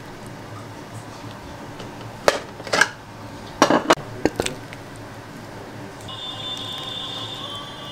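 A few sharp clinks and knocks of dishes and kitchen utensils, bunched together in the middle. Background music comes in near the end.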